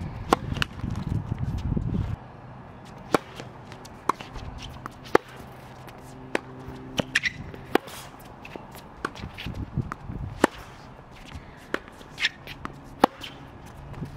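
Tennis ball struck by racquets in a rally on a hard court: a serve with a sharp pop right at the start, then about a dozen irregularly spaced pops of shots and bounces, the closest strikes loudest.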